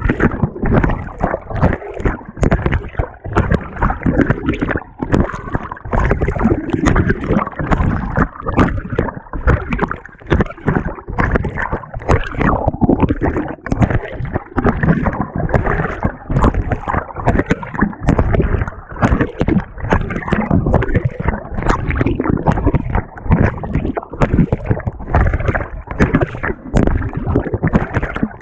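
Water sloshing and churning in a 2018 GE GTW220ACKWW top-load washing machine as its agitator works the load, heard from a camera fixed to the agitator. The sound is loud and choppy, with irregular surges of water in quick succession.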